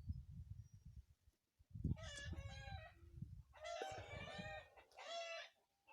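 Cockerels crowing: three calls in a row starting about two seconds in, over a low rumbling noise.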